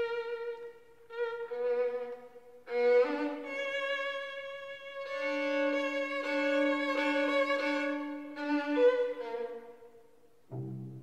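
Slow bowed string music: a violin holds long notes, often two at a time, with short breaks between phrases.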